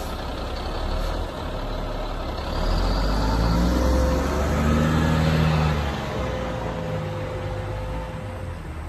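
2006 Sterling L7500 dump truck's diesel engine accelerating as the truck drives off. The engine note climbs and grows louder from about two and a half seconds in, holds until about six seconds, then eases off and fades as the truck moves away.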